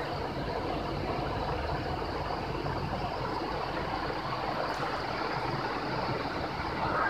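Steady background noise: an even hiss with a low hum underneath, unchanging throughout.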